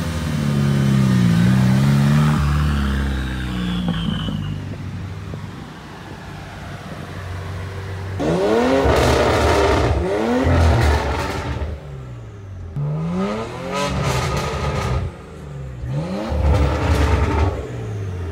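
VUHL 05's turbocharged four-cylinder engine running under way. From about eight seconds in it is revved in several sharp blips, its pitch shooting up and falling back each time.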